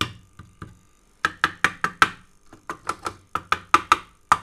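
Rapid, uneven clicking rattle from inside a Physiomed 2 electrotherapy unit, a few sharp metallic clicks and then, from about a second in, about five a second. It is the rattle that the repairer suspects is a faulty or sticking relay.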